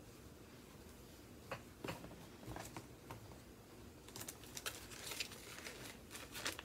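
Quiet handling sounds of cross-stitch fabric and paper being folded and moved about: a few scattered light taps, then a busier run of rustles and small clicks from about four seconds in.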